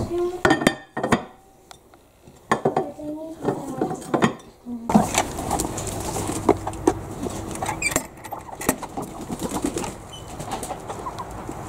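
A glass bowl clinks and knocks against a stoneware slow-cooker crock several times. About five seconds in, the sound changes to outdoor noise at a chicken coop, with hens clucking and a few light rattles.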